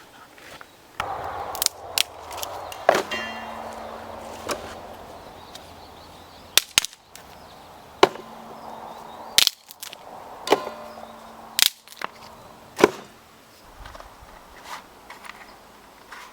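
About ten sharp strikes at irregular intervals, roughly a second apart, several of them followed by a short metallic ring.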